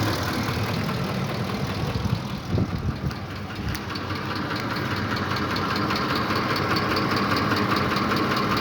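Ford 5.4 Triton three-valve V8 idling with its rapid ticking knock, with both variable cam timing solenoid connectors unplugged. The knock goes on unchanged, so the solenoid control does not seem to be its cause.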